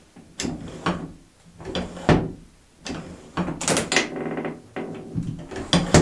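Home-made steel door latch worked back and forth by hand: a U-shaped half-inch steel tube sliding in a track of 1-inch steel tubing, with several metal clanks and a rasping scrape partway through, echoing in a small room.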